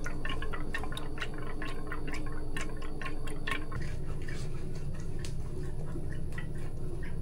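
Many quick, irregular small clicks and taps from gloved hands handling small lab items, dense for about the first four seconds and sparser after that, over a steady low hum.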